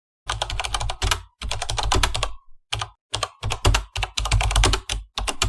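Computer keyboard typing: fast runs of key clicks in several bursts, broken by short pauses.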